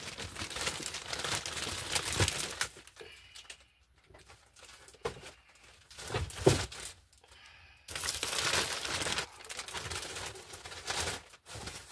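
Plastic poly mailer bags crinkling and rustling as they are handled and moved, in several bouts with quieter gaps. There is a single sharp thump about six and a half seconds in.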